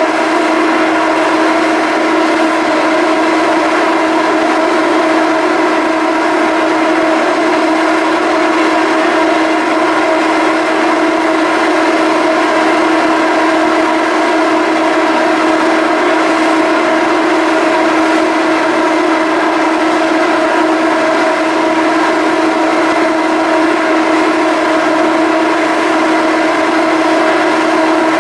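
Salish-class ferry's machinery running with a loud, steady hum: a strong low tone with several higher tones stacked above it, over a hiss.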